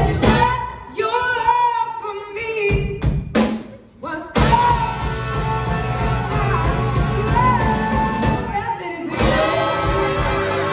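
Live blues-soul band with drums and electric guitars playing while a woman sings lead, heard from the audience in a large hall. The band drops out briefly about four seconds in, then comes back in full.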